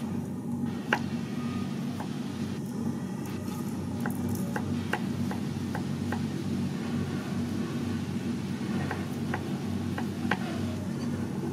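Knife slicing garlic cloves on a wooden cutting board: irregular light taps of the blade against the board, over a steady low hum.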